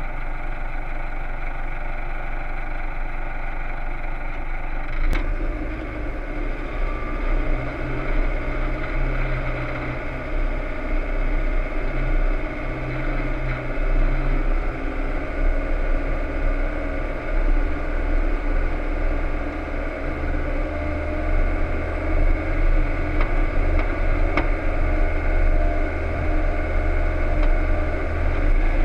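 Toyota Land Cruiser KDJ125's 3.0-litre turbodiesel engine running at low speed as the vehicle crawls along a rough dirt track. The low rumble gets heavier and more uneven about five seconds in, with a few sharp knocks from the vehicle over the bumps.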